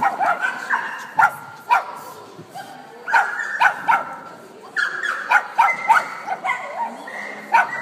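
A dog barking repeatedly, in quick runs of short, high-pitched barks with brief pauses between the runs.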